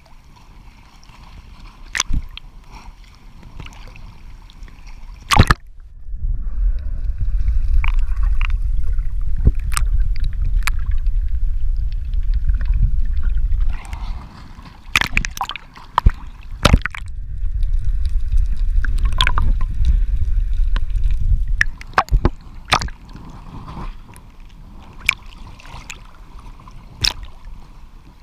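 Sea water sloshing and splashing around a waterproof action camera at the surface, with many sharp splashes and clicks. There are two long stretches of loud, low, muffled rumble.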